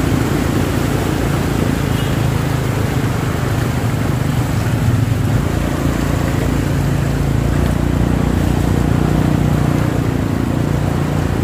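Motorbike and car engines running in slow traffic through a flooded street, a steady low hum, with water sloshing and splashing around the wheels.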